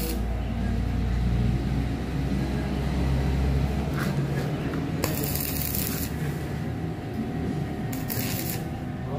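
Electric stick welder striking short tack welds on a loose part of a Yamaha NMAX magneto rotor: the arc crackles in two bursts, one about five seconds in lasting about a second and a shorter one near the end. The welds are meant to stop the part working loose and knocking. A steady low hum runs under the first four seconds.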